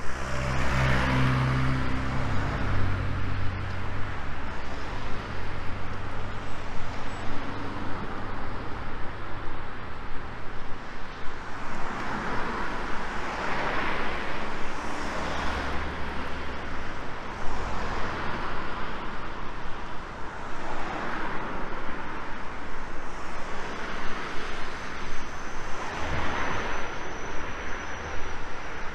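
Road traffic: several cars pass one after another on the street alongside, each one's tyre and engine noise swelling and fading away. A low engine hum is heard in the first few seconds.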